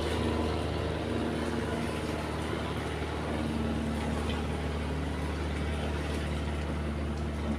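An engine running steadily: a constant low hum with a few steady tones above it.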